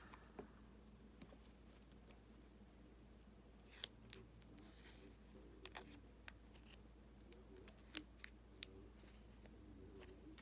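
Near silence broken by a handful of faint, sharp clicks and light rustles from handling trading cards and their plastic holders.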